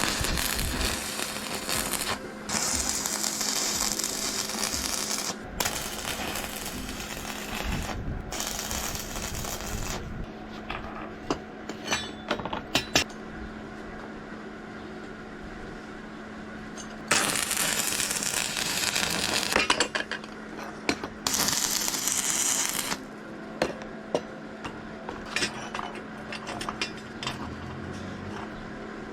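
Metalworking on steel parts: several loud bursts of hissing tool noise, each a couple of seconds long, in two groups, with sharp metallic clicks and clinks of parts being handled between them.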